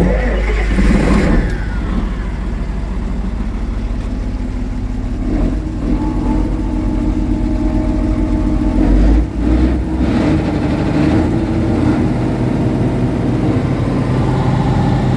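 Komatsu diesel engine of a 220 kW generator set cold-starting with no preheat or glow plugs after sitting unused for a month and a half: it is cranked, catches about five seconds in, and settles into a steady, smooth run, purring like a kitten.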